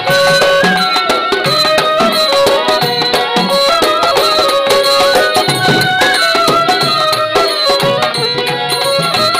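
Violin playing a melodic instrumental interlude of a Bengali folk song, with gliding notes, over a steady hand-drum rhythm.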